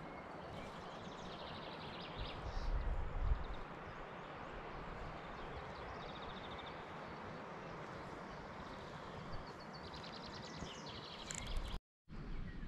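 Steady outdoor background hiss with small birds chirping and trilling in the distance, in quick runs about one to five seconds in and again around ten to eleven seconds. A louder low rumble comes about two to three seconds in, and the sound cuts out for a moment near the end.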